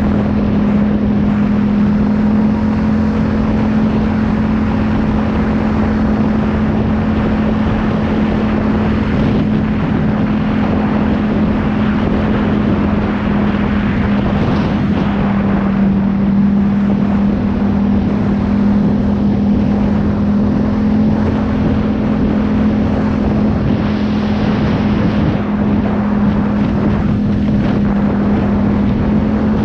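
Vehicle engine running at a constant, unchanging pitch, with a steady drone under dense wind and travel noise.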